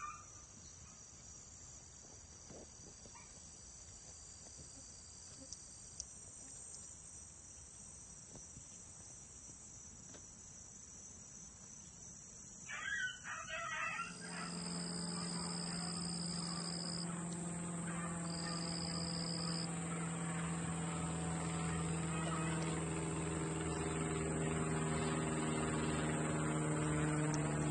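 Insects trilling in steady high-pitched tones. About halfway through, after a brief louder noise, a motor starts running with a steady low hum and slowly grows louder.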